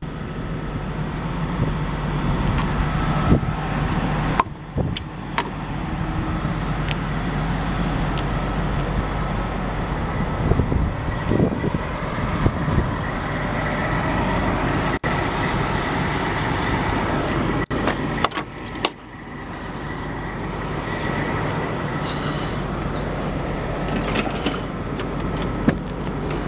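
2004 GMC C5500 shuttle bus's Duramax V8 turbodiesel idling steadily, with a few light knocks on top.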